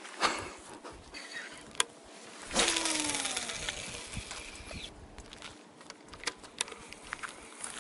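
A fishing cast: after a sharp click, a fishing reel's spool whirs as line pays out, its whine falling in pitch as it slows over about two seconds. A few light clicks follow near the end.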